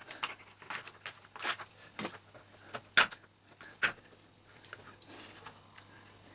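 Screwdriver tips prying and scraping at the plastic shell of a computer mouse, giving irregular small clicks and scrapes. The sharpest clicks come about 3 and 4 seconds in.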